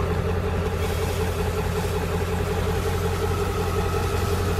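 An engine running steadily at idle: a low, even hum with no change in pitch.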